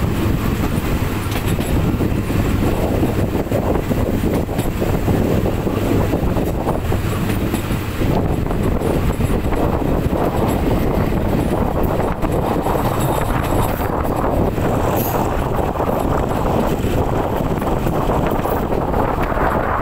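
Local passenger train running along the track, a steady continuous noise of the train in motion.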